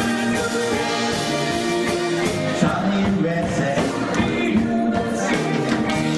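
Live rock and roll band playing, with singing over drums and electric guitar.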